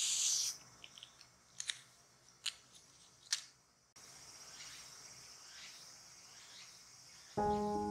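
Strands of embroidery thread drawn out by hand, a soft swish, followed by three light ticks. After about four seconds, faint handling sounds as a needle is threaded, and gentle music with held notes comes in near the end.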